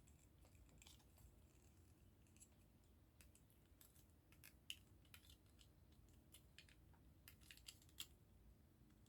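Near silence with faint, scattered clicks and ticks of small plastic model-kit parts being handled as the inner 'brain' piece of a gashapon Zaku head model is worked out of its plastic stand.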